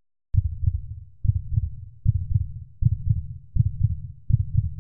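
Heartbeat sound effect: low, muffled thuds repeating a little faster than once a second, starting just after a brief silence.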